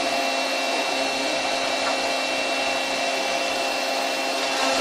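Steady running hum of a powered-up CNC lathe standing idle with its spindle stopped, a constant machine drone with a few held tones.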